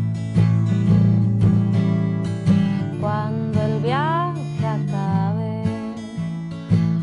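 Acoustic guitar playing steady plucked chords, with a woman's singing voice coming in about three seconds in on a long note that bends up and down.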